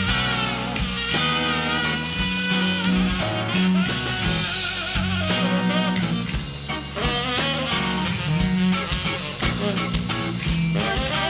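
A blues band playing live in an instrumental passage of a slow blues, with electric guitar over bass and drums and no singing.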